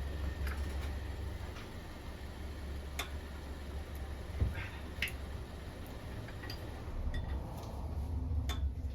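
Scattered light clicks and taps at uneven intervals over a steady low rumble.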